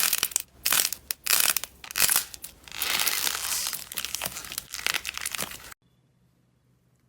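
Slime being pressed and squeezed by hand, giving a run of crackling crunches that turn into a dense continuous crackle, then cut off abruptly near the end.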